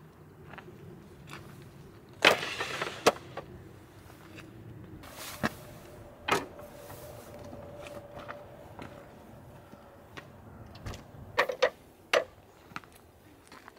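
Camping gear and dishes handled and set down on a wooden camp table: scattered knocks and clicks, a louder scraping rustle about two seconds in, and a quick cluster of knocks near the end.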